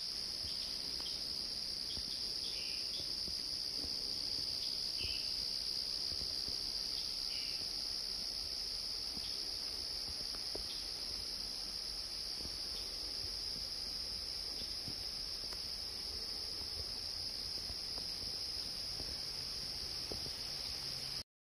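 A steady, high-pitched insect chorus, with a few faint short chirps over it. It cuts off suddenly near the end.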